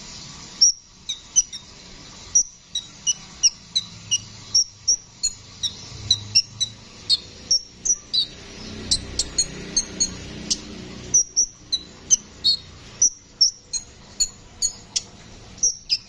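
Male Van Hasselt's sunbird singing a run of short, sharp, high chirps, about two to three a second, with a few closer clusters in the middle.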